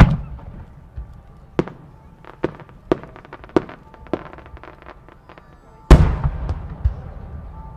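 Aerial firework shells bursting in the sky. A loud boom comes at the start and another about six seconds in, each trailing off over a second or more. Between them comes a string of about six sharper, shorter cracks.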